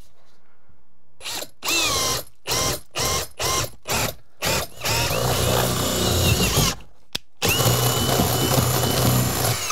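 Ryobi cordless drill boring a hole through a wooden stud. The motor starts in about six short bursts as the bit bites, then runs steadily twice with a brief stop between.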